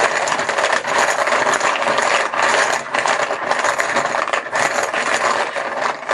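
Draw chips rattling and clattering continuously as they are shaken and mixed in a tub before one is drawn at random.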